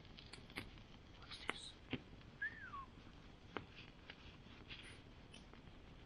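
Log campfire crackling, with a few sharp pops at uneven intervals. About two and a half seconds in, a single short chirp falls in pitch.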